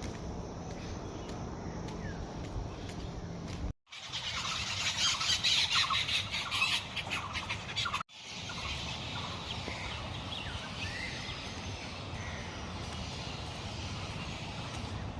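Many small birds chirping. There is a dense, loud burst of rapid chirps in the middle, then softer scattered calls. The sound cuts out completely for a moment twice, before and after the loud burst.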